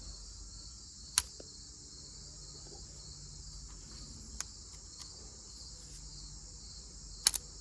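Crickets trilling steadily, with sharp metallic clicks from the hand-forged flintlock lock being handled: one about a second in, a faint one midway and a double click near the end.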